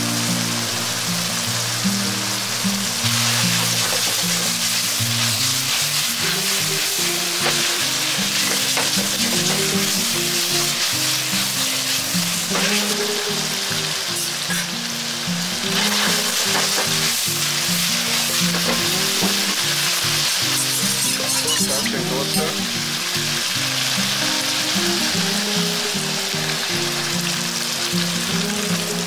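Stir-fried eggplant, ground pork and vegetables sizzling steadily in a thickening sauce in a frying pan, with a few light clicks.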